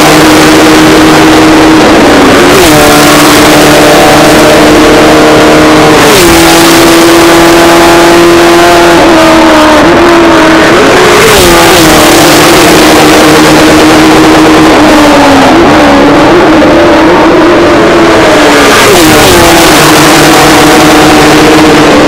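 Super 6000 class GR Supra stock cars' V8 engines driving past one after another and pulling away down the straight. The engine note is loud and steady, and its pitch drops every few seconds as another car goes by.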